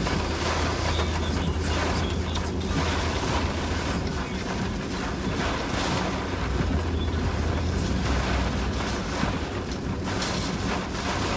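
Heavy hurricane rain on a moving car, heard from inside the cabin: a steady rush of rain and tyres on the flooded road over a low, even rumble of the car driving.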